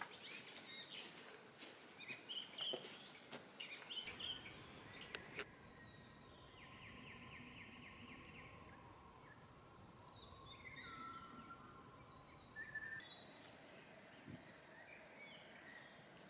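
Faint woodland ambience with small birds calling: scattered short chirps and, partway through, a rapid trill of evenly repeated notes.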